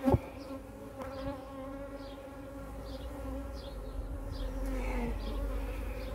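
Honeybees buzzing around an opened hive, a steady hum of many bees in flight. A single sharp knock comes right at the start.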